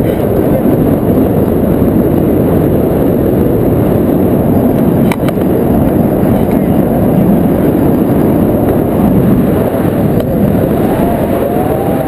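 Loud, steady wind rushing over the microphone of a camera carried on a tandem paraglider during launch and climb-out, with one click about five seconds in.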